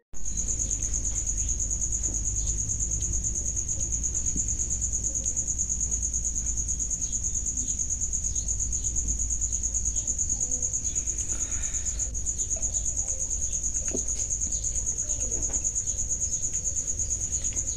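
Steady high-pitched chirring of crickets, a continuous insect chorus with a fast pulse, over a low rumble. A few faint soft clicks come through it.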